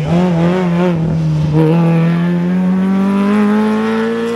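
Rally car engine at full throttle on a hill climb. Its pitch wavers in the first second, dips slightly about a second and a half in, then climbs steadily as the car accelerates through a gear.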